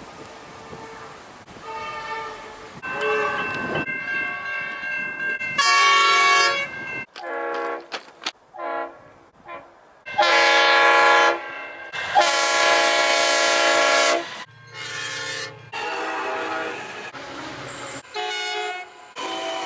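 Train horns sounding in a run of spliced clips, each a chord of several steady tones that starts and cuts off abruptly. There are short toots around eight seconds in, and the loudest are two long blasts about ten and twelve seconds in.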